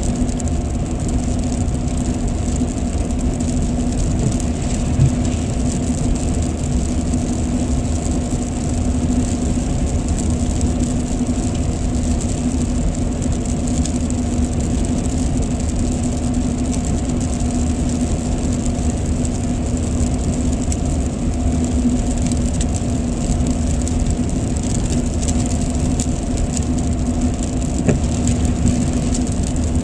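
Steady road noise inside a car's cabin at highway speed: a constant drone of engine and tyres that holds level throughout.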